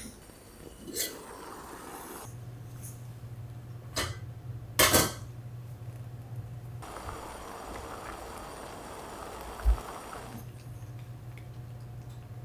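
Dishes and utensils clinking as food is handled: a few sharp clinks, the loudest about five seconds in, then a soft rustle for a few seconds and a dull thump, over a low steady hum.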